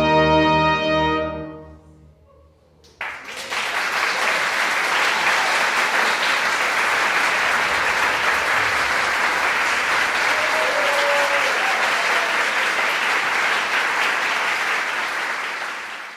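Symphony orchestra with strings and brass holding its final chord, which dies away over about two seconds. After a second of near silence, the audience starts applauding, and the applause carries on steadily and fades out at the very end.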